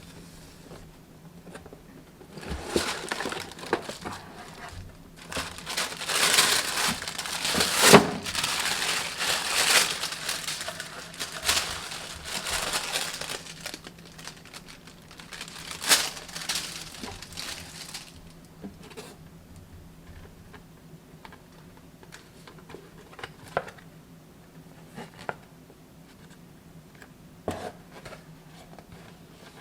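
Packaging crinkling and rustling as it is handled and unwrapped. The crinkling is heaviest in the first half, then trails off into a few scattered light taps and rustles.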